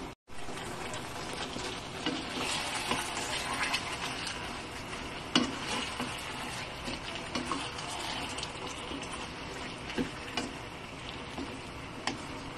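Fried chicken wings sizzling in sauce in a nonstick wok while being stirred and tossed with a spatula, with a steady sizzle and occasional sharp knocks of the spatula against the pan. The sound drops out for a split second just at the start.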